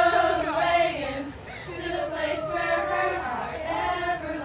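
Group of young women singing together in a circle, a sorority candle-ceremony song with long held notes.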